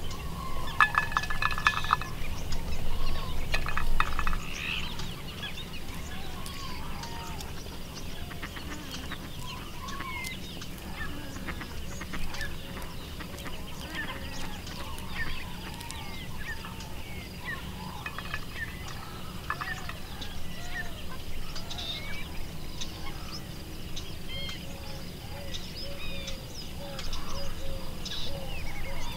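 Many birds calling in the background: a steady scatter of short chirps and calls. There are a few louder clattering sounds in the first four seconds.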